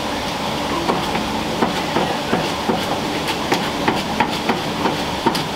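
Kitchen clatter: a run of short, sharp knocks, about two to three a second, over a steady background of busy-kitchen noise.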